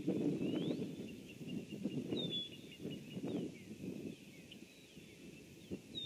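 Birds chirping: a sharp high note repeats about every three seconds, with a run of quick high ticks midway. Under them, a low rumbling noise, likely wind on the microphone, swells and fades and is the loudest sound.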